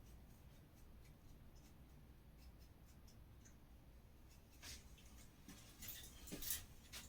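Near silence, then from about halfway through, faint scattered scratches and light clicks of small parts being handled.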